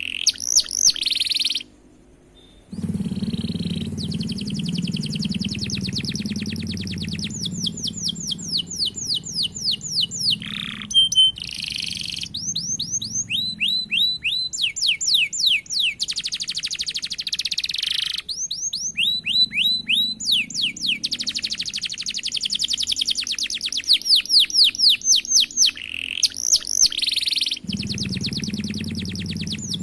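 Domestic canary singing long, rapid rolls: fast runs of repeated high notes, with a brief break about two seconds in.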